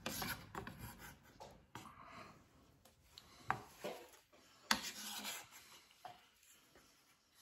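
A kitchen utensil scraping and rubbing against a board or pan as diced bacon goes into the bean mix, with two sharp knocks about three and a half and nearly five seconds in.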